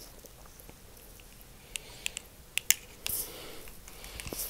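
Handling noise close to the microphone: a handful of sharp small clicks around the middle, followed by a short rustle.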